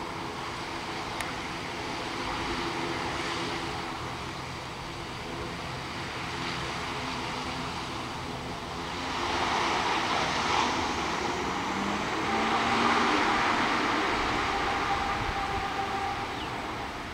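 ATR 72-600 turboprop's twin Pratt & Whitney PW127 engines and propellers running with a steady droning hum. About nine seconds in the engines power up and grow louder as the aircraft starts its takeoff roll.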